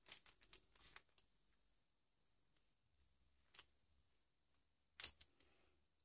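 Near silence with a few faint, brief scratches from a thin paintbrush working paint onto a paper collage page: a short cluster in the first second, one about three and a half seconds in, and the loudest about five seconds in.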